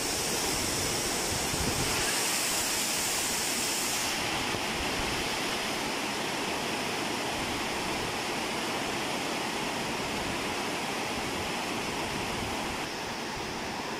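Water released from a dam rushing out and churning into white foam over a concrete floor, a steady dense rush that eases slightly near the end.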